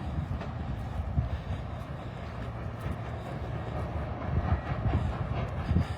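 Steady low industrial rumble and drone from the neighbouring data center site, uneven in the low end. The speaker says this noise is damaging to the children's hearing.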